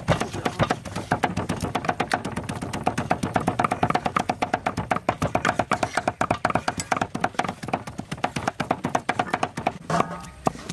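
Fast knife chopping on a cutting board, a steady run of about ten sharp knocks a second, as vegetables are cut up for a stir fry.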